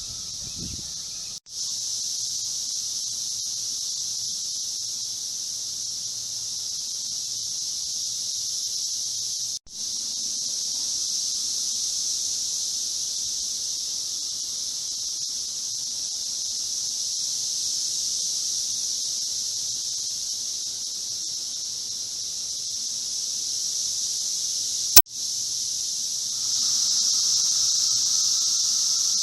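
Chorus of Brood X 17-year periodical cicadas, a steady high-pitched drone. It drops out for an instant three times, with a sharp click at the third, and is louder for the last few seconds.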